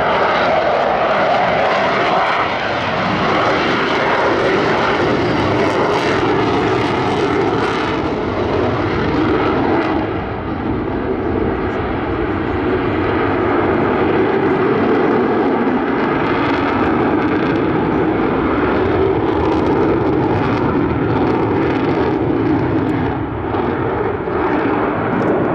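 Avro Vulcan's four Rolls-Royce Bristol Olympus 202 turbojets, without reheat, running at high power: a loud, steady jet noise. About ten seconds in it turns duller as the high hiss fades.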